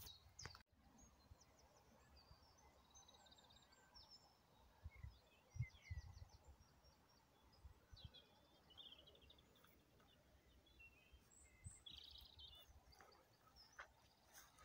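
Faint birdsong: several small birds giving short high trills and chirps now and then, over quiet outdoor background with a few soft low thumps.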